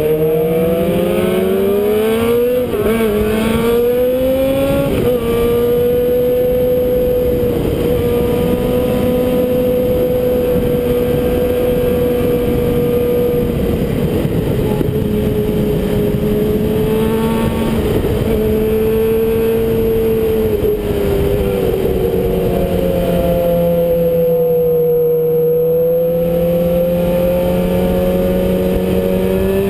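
Onboard sound of a 2011 Suzuki GSX-R600's inline-four engine. It accelerates with rising pitch and two quick upshifts in the first five seconds, then holds a steady cruise, easing off and picking up again past the twenty-second mark, under constant wind rush on the microphone.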